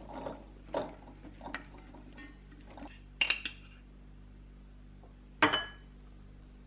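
Cut eggplant pieces tumble from a stainless steel pot into a glass bowl with a soft rustle and small knocks. Then come two sharp, ringing clinks of a metal spoon against a glass jar of cornstarch, about three seconds in and again about five and a half seconds in.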